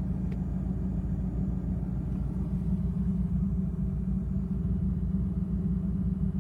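Toyota MR2 Turbo's 3S-GTE turbocharged four-cylinder engine idling steadily, heard from inside the cabin.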